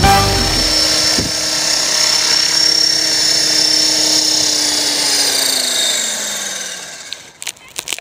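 Align T-Rex 500 electric RC helicopter's motor and rotor whining steadily, then falling in pitch and fading as it spools down after landing. A few clicks come near the end.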